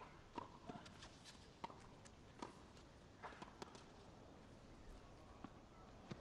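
Faint tennis rally: a series of sharp knocks at irregular gaps of roughly a second, from rackets striking the ball and the ball bouncing on the court, with players' footsteps.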